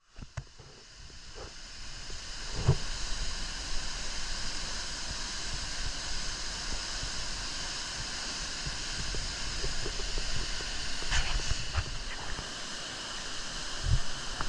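Steady rushing of a waterfall, fading in over the first couple of seconds, with a few faint knocks.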